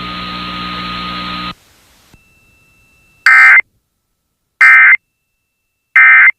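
Emergency Alert System end-of-message data: three short, identical, loud digital warbling bursts of SAME data about 1.3 seconds apart, signalling the end of the tornado warning broadcast. They come after about a second and a half of steady hiss and hum.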